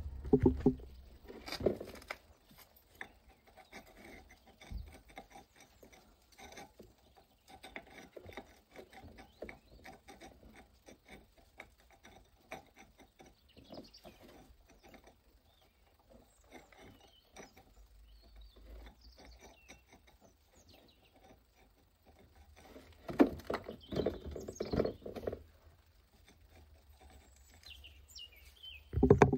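Gloved hands fitting a broken stone rosette back onto a stone balustrade with quick-drying cement: small scrapes, taps and clicks of stone and glove, with louder bursts of handling about a second in and again after about 23 seconds. Birds chirp faintly now and then.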